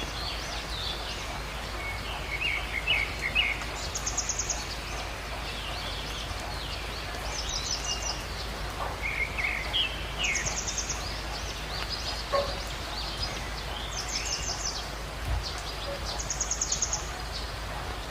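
Birds calling over a steady hiss of rain. A short high trill repeats every few seconds, with other chirps in between.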